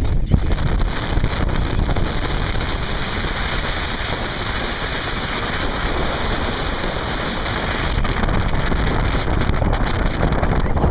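Steady wind buffeting the microphone over a low rumble, with the sound of open water.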